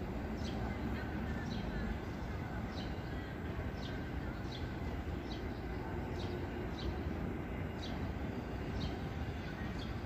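Wild common myna calling: a run of short, high, falling notes repeated about every half second to second, over a steady low rumble.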